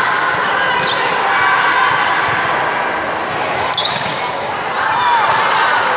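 Indoor volleyball rally: sharp hits of the ball about a second in and again near four seconds, with sneakers squeaking on the hardwood court and players' voices calling out in the echoing hall.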